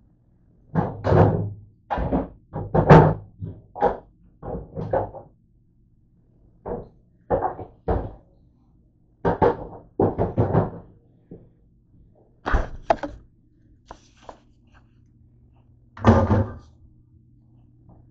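Irregular knocking and thunking as kitchen items are moved about below the counter, about twenty knocks in uneven clusters, the loudest about three seconds in and again about sixteen seconds in.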